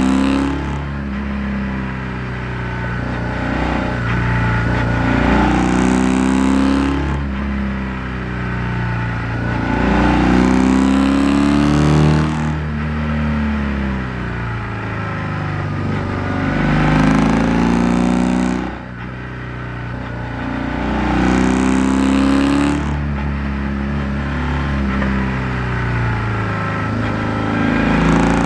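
BMW R1100R's air/oil-cooled boxer twin engine, recorded from under the seat while riding, its revs climbing and dropping several times as the bike accelerates and rolls off again.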